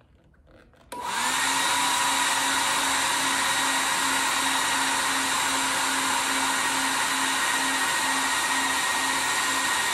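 Super Beast load tester switched on about a second in, then running with a steady, fan-like rush and hum as it puts a heavy load on the panel to test the neutral.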